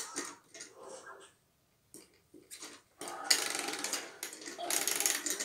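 Plastic clicking and rattling from a baby's electronic crawl-ball toy as it is pressed and turned, with a short quiet gap. About three seconds in, a louder, continuous rattling sound from the toy starts.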